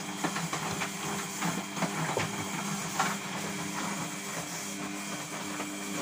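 Samsung WF6520N7W front-loading washing machine running its wash cycle: a steady motor hum with a light hiss and a few faint knocks.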